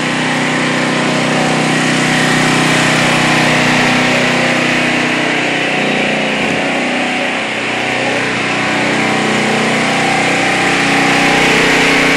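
An engine running steadily at a constant speed, a loud, even hum with a hiss above it.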